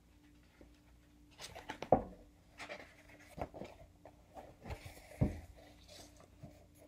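Hands handling a hardcover book: pages rustling and turning, with brief knocks as the book is moved, the loudest about two seconds in and another about five seconds in.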